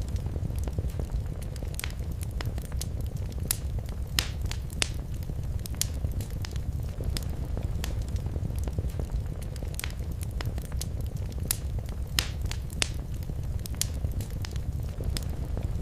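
Wood fire crackling in a fireplace: a steady low rumble of flame with frequent irregular snaps and pops, a few sharper than the rest.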